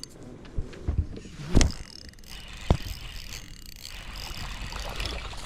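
Knocks and handling sounds in a small fishing boat, over a steady low rumble. The two sharpest knocks come about a second and a half and two and a half seconds in.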